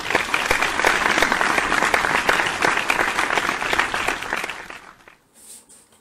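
Applause: many hands clapping in a dense patter that fades out a little before the end.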